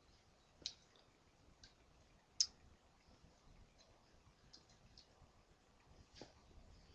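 Stainless-steel Leatherman Core multi-tool having its blades and tools unfolded by hand: faint, scattered metallic clicks as the implements swing out and snap into place, the sharpest about two and a half seconds in.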